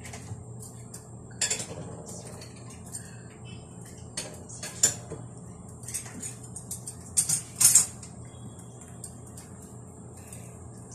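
Egg and meat slices frying in a ceramic nonstick pan: a faint steady sizzle broken by sharp clicks and clinks, once about a second and a half in, twice around five seconds, and a loud cluster near seven and a half seconds.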